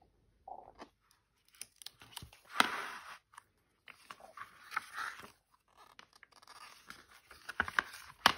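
Hardcover picture book being opened and its stiff pages turned by hand: paper rustling and sliding in several bursts, loudest about two and a half seconds in, with a few light knocks.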